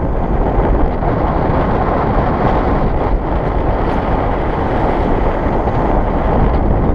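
Wind buffeting the microphone of a camera on a moving vehicle: a loud, steady rushing rumble.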